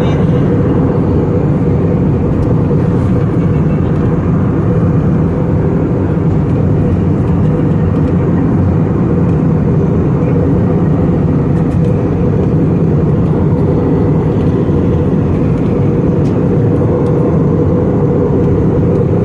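Airliner cabin noise in flight: a steady, loud, low rumble of engine and airflow noise that does not change.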